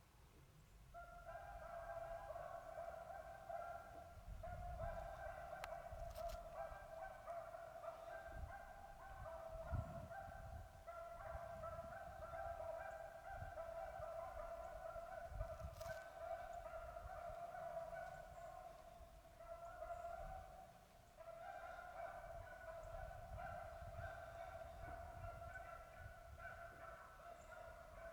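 Beagles baying continuously while running a rabbit track, with a short lull about two-thirds of the way through.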